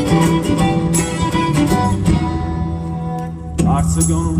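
Live folk band playing: violin, upright bass, acoustic guitar and drums, heard from the audience.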